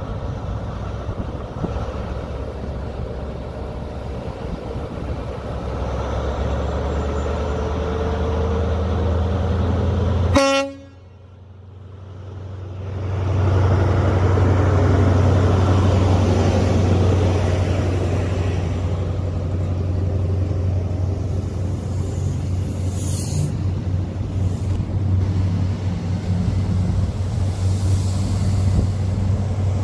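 Diesel engines of a GWR Class 43 High Speed Train power car running steadily as the train moves slowly past, the engine note rising a little after a few seconds. About ten seconds in there is a very short horn toot, the sound drops out for a second or two, then the engine comes back louder as the power car and coaches pass.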